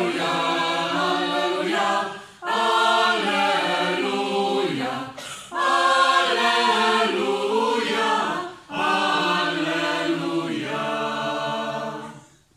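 Mixed choir of men's and women's voices singing a cappella, in sung phrases with short breaths between them. The last chord dies away near the end.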